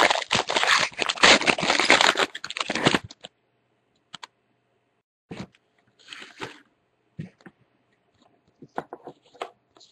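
A plastic trading-card pack wrapper being torn open and crinkled in the hands, a dense crackling that cuts off abruptly about three seconds in. A few soft taps and rustles of cards being handled follow.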